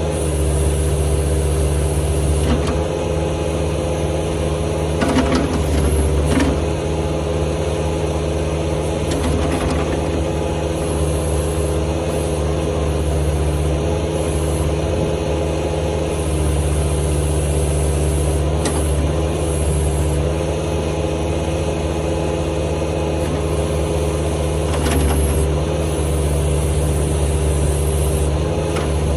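Bobcat 863 skid steer's diesel engine running steadily, powering the backhoe attachment. Its level swells slightly a few times, with a few short clanks.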